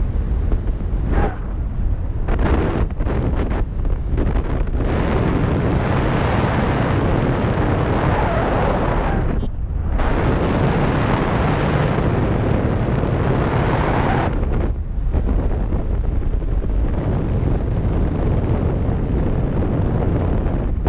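Wind noise on the camera microphone of a paraglider in flight: a loud, steady rushing rumble of airflow. It eases off briefly a few times, most clearly about halfway through.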